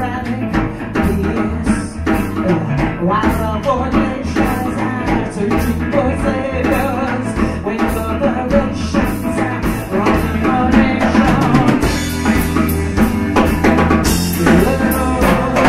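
Live blues-rock band playing: a drum kit keeps a steady beat over bass and electric guitar.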